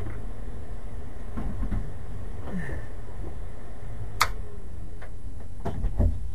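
Steady low rumble, with a sharp click about four seconds in and two knocks near the end.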